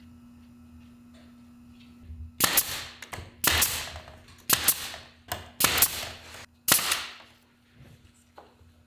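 Nail gun firing into wooden trim: about seven sharp shots roughly a second apart, each trailing off briefly, after a quiet start with a steady low hum.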